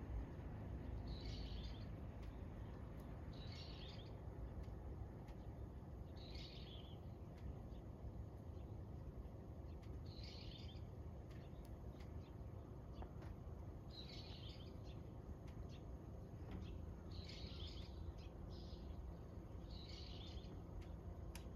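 A small bird chirping in short calls, one about every two to three seconds, over a faint steady low rumble of outdoor background noise.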